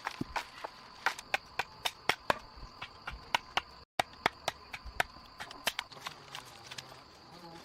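Irregular sharp ticks and taps, several a second, over a steady high-pitched insect drone, with a brief cut to silence about four seconds in.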